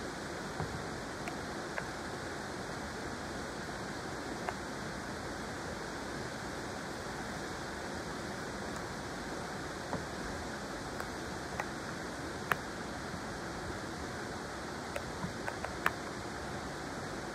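Steady rush of flowing river water, with a few sharp clicks now and then, more of them near the end.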